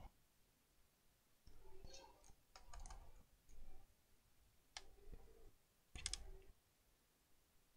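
Faint clicks and scrapes of a Lenovo laptop's plastic bottom cover being handled and worked open, in about five short bursts.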